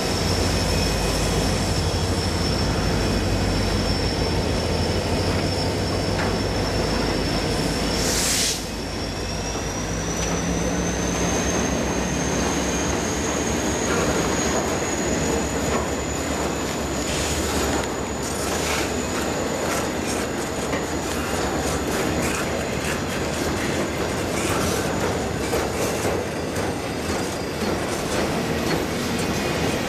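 Intermodal freight train rolling past close by, wheels rumbling and clicking over the rails, with a steady high-pitched wheel squeal that shifts a little higher about nine seconds in. Near that shift comes a brief sharp burst.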